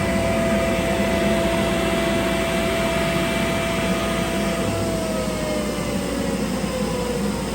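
Canister dust collector and CNC machine running steadily during a surfacing pass. About two-thirds of the way through, one motor's tone slides down in pitch as it spins down.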